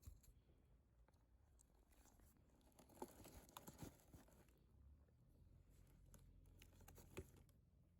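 Near silence: faint low background hum, with a few soft clicks and rustles about three seconds in and one more click near the end.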